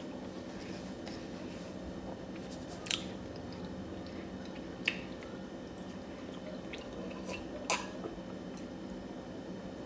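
A person chewing food and then sipping from a glass, with a few short sharp clicks about three, five and eight seconds in, over a steady low hum.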